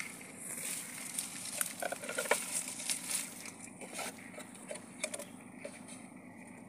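Small live mud crabs (cáy) clicking and scrabbling in a plastic bucket as more are handled into it, with light rustling of grass: a scatter of short irregular clicks, busiest in the first half.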